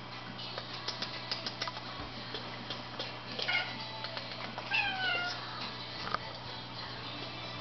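Domestic cat meowing twice: a short call about three and a half seconds in, then a longer one that falls in pitch about a second later.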